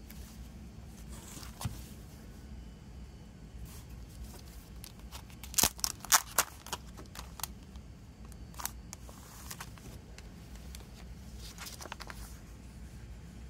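Cellophane shrink-wrap crinkling and crackling as it is peeled off a CD case, loudest in a quick cluster of crackles about halfway through. Softer rustles of paper and card being handled come before and after.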